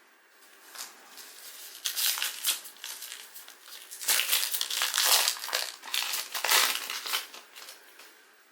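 A trading-card pack wrapper crinkling and crumpling in the hands as it is opened, in irregular crackly bursts that are loudest in the second half.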